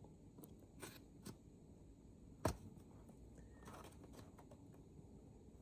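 A few faint clicks and light knocks from hands working on the plastic and metal case of a laptop during disassembly, the sharpest click about two and a half seconds in, over a quiet room.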